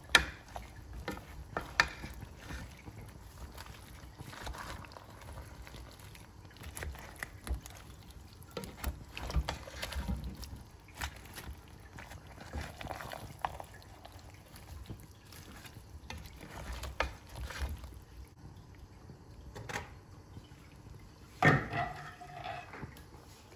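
Chunky vegetable stew being stirred in a granite-coated pot: irregular scrapes and knocks against the pot, with the wet shifting and sloshing of the vegetables in their sauce.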